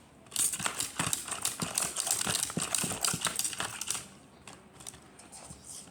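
Rapid plastic clicking and clacking from an Akedo toy battle figure being worked with its hand controller, many sharp clicks a second for about three and a half seconds, then stopping.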